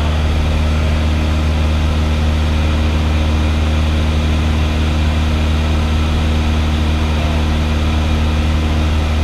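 Single-engine piston airplane's engine and propeller running at a steady cruise, heard as a loud, unchanging low drone inside the cabin.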